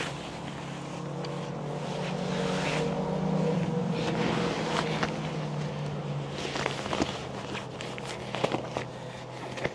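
A motor vehicle's engine drones steadily, growing louder about three seconds in and then fading. Scattered clicks and light knocks of gear being handled come in the last few seconds.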